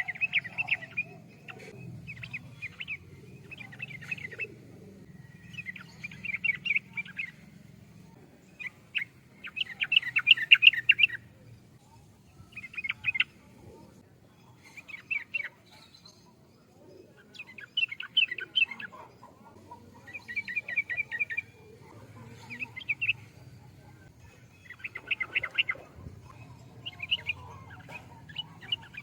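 Yellow-vented bulbul (trucukan) singing: short, bubbly phrases of quick notes, repeated every two seconds or so.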